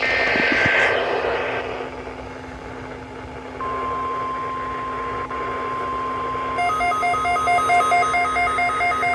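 Weather radio static, then the NOAA Weather Radio 1050 Hz warning alarm tone comes on as a steady single tone about three and a half seconds in. About three seconds later a weather radio receiver sets off its alert beeping, about three beeps a second, over the tone: the receiver activating on the weekly test.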